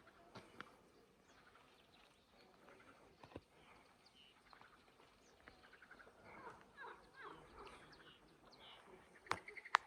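Faint outdoor chorus of small birds chirping, with short rising and falling calls. Two sharp clicks near the end.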